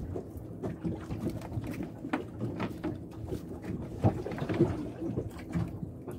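Fishing net being hauled and handled in a fibreglass boat: irregular knocks, clicks and rustles of net, line and hands against the hull.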